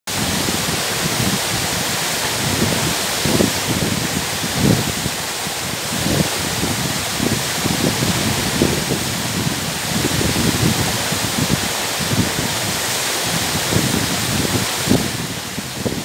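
Waterfall falling down a steep rock face onto boulders: a loud, steady rush of water with uneven low surges.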